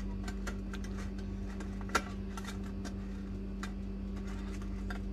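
Irregular light clicks and taps of dry-baked cake rusk slices being flipped and set down on a metal baking tray, with one sharper knock about two seconds in, over a steady low hum.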